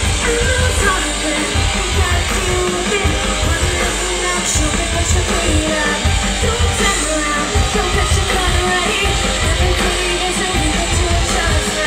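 Live rock music from a concert: loud electric guitar over a heavy pounding beat, with a singing voice.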